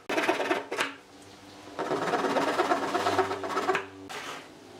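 Fine-toothed handsaw cutting protruding wooden dowel pegs flush with a pine board: rapid rasping saw strokes in two runs, a short one at the start and a longer one after a pause of under a second.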